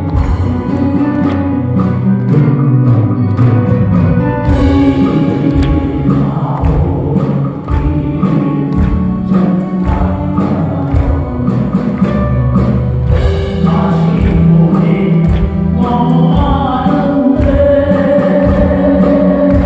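Live band music with singing and a steady beat.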